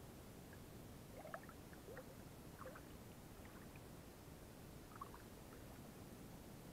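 Faint small splashes and gurgles of lake water as a swimmer moves through calm water, a few scattered blips over a low steady hiss.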